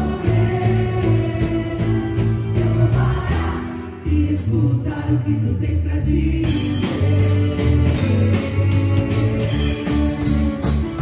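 Amplified Christian worship music played live: singing over a band with a steady drum beat. The drums drop out about four seconds in and come back near seven seconds.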